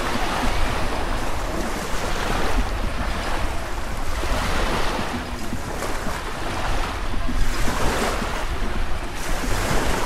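Small waves washing onto a sandy shore, swelling and falling back every couple of seconds, with wind rumbling on the microphone.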